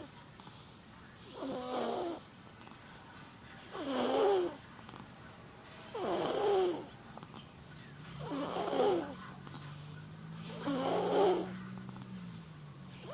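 An 11-month-old baby snoring in sleep: a regular, rasping snore about every two seconds, five in a row, with a sixth starting at the very end.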